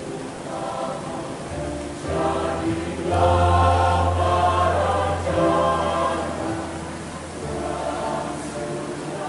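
A choir singing sustained chords in parts, growing louder through the middle and easing off towards the end.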